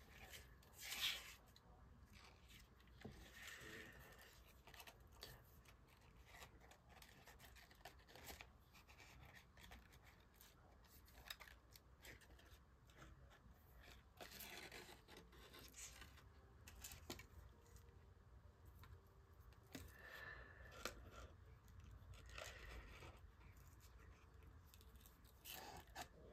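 Faint handling sounds of string being wrapped around a paper card: soft scattered rustles, scrapes and small clicks.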